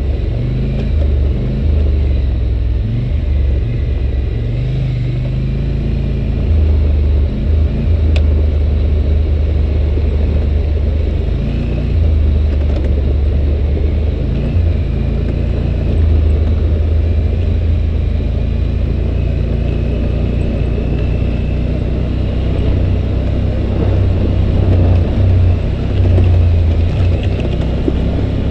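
2011 Polaris Sportsman 850 Touring ATV's engine running at low revs on a downhill gravel track, its note stepping up and down with the throttle, with tyres crunching over gravel beneath it.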